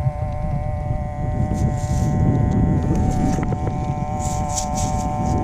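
Wind rumbling on the microphone over a steady hum of several unchanging tones, with a few short hissy scrapes in the second half.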